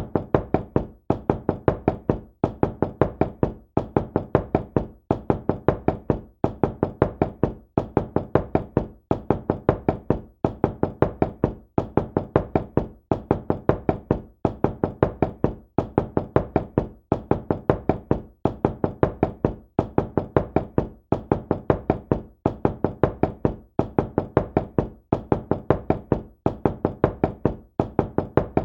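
Knocking on a door: quick clusters of several knocks repeating about once a second, without a break.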